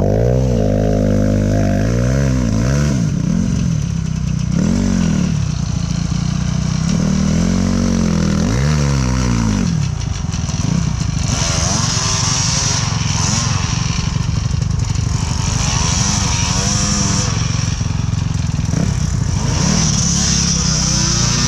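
Enduro motorcycle engine revving in repeated blips, rising and falling, for about the first nine seconds, then held at high revs under load for the rest.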